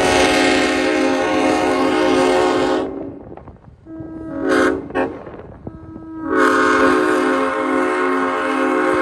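Diesel locomotive air horn blowing: a long blast of about three seconds, two short toots, then another long blast beginning about six seconds in.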